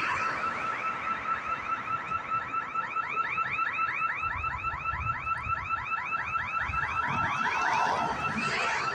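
Electronic security alarm siren sounding: a rapid warble of rising chirps, about six or seven a second, over a steady high tone.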